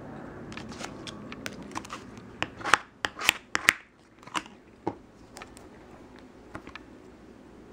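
A plastic card scraping nail polish across a metal nail-stamping plate: a cluster of short, sharp scrapes and clicks about two to four seconds in, a couple more soon after, then only faint handling.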